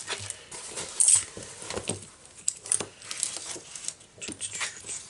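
Magnets clicking down one by one onto a stainless steel tabletop, with the crinkly plastic cover of a diamond painting canvas rustling as hands smooth it flat. The sharpest click comes about a second in.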